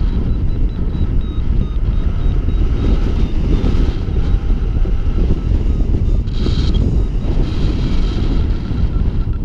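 Wind rushing over an action camera's microphone in paraglider flight: a loud, steady low rumble. Faint, high, repeated beeps of a flight variometer sound behind it.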